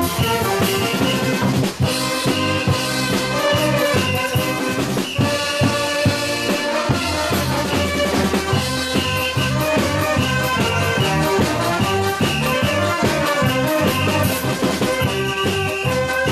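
A marching band of saxophones and drums playing a lively tune, with several saxophones carrying the melody over a steady drum beat.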